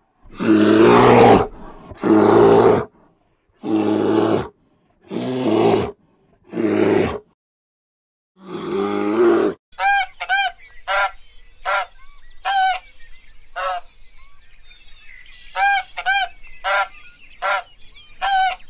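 Six loud, rough calls from a sun bear, each about a second long and about a second and a half apart. Then from about ten seconds in, a domestic goose honks repeatedly in short calls, often in pairs.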